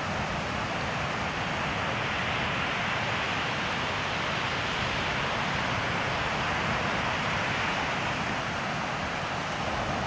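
Ocean surf breaking on a sandy beach: a steady rush of waves that swells a little midway and eases again.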